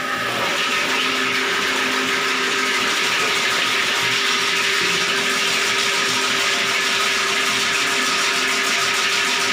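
Electric drain-cleaning machine running steadily, its motor spinning the coiled steel spring cable fed into a blocked toilet drain to clear the clog.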